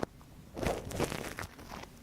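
Close-up ASMR ear-cleaning sounds: a tool or fingers scratching and rubbing in the ear of a microphone, giving a short run of crackling scratches about half a second in.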